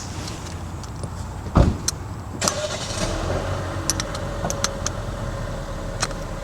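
Hand tools working on a truck's wheel hub bolts with a T47 Torx socket: a heavy knock about a second and a half in, then scattered sharp metallic clicks, over a steady low rumble.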